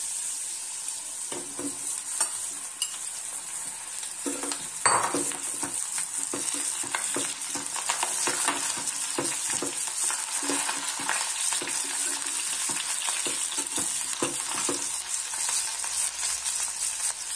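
Potatoes and eggplant chunks frying in hot oil in a steel kadhai, a steady sizzle, while a metal spatula scrapes and clinks against the pan as it stirs, with a louder clatter about five seconds in.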